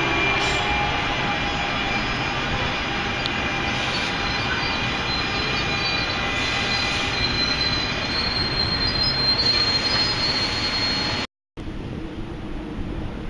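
A passenger train's coaches rolling past: a steady rush of wheels on rail with thin, high squealing tones from the wheels. About eleven seconds in it cuts off abruptly to a quieter, even rush of wind on the microphone.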